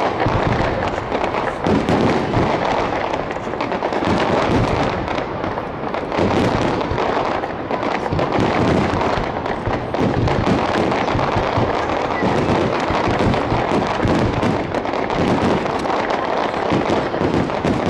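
Fireworks in a rapid-fire starmine salvo, shells launching and bursting in a dense, near-continuous barrage of bangs and crackle with no pause.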